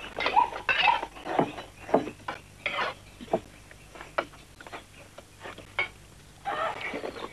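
Irregular clinks and clatter of cutlery against dishes, with scattered short knocks.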